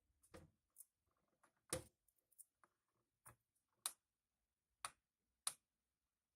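A series of short, sharp clicks at uneven intervals, about nine in six seconds, against near silence.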